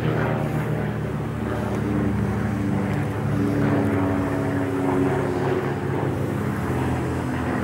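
Volkswagen Touareg engine at low revs, a steady low drone as the SUV crawls slowly up a rocky hill.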